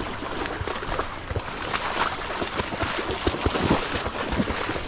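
Shallow water sloshing and splashing among dry, standing corn stalks, with a busy run of crackling and rustling from the stalks and husks being brushed.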